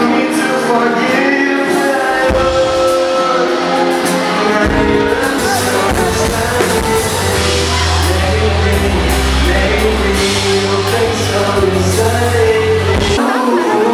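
Live rock band playing, with a male lead singer over guitar and drums. A heavy bass line comes in about two seconds in and drops out near the end.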